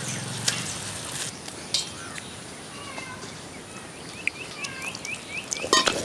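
A bird calling in a quick run of short chirps late on, over the steady scraping of a stone grinder working wet rice batter.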